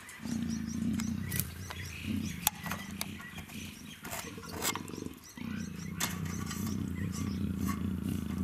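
Black leopard in heat giving low, drawn-out growling calls: two in the first half, the second short, then a longer one from about five seconds in. The calling is part of her estrus display.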